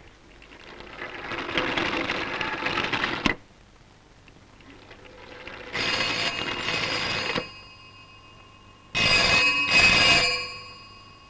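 Telephone bell ringing in bursts: one ring about six seconds in, then a double ring near the end. Before that, a rattling whir builds and cuts off sharply about three seconds in.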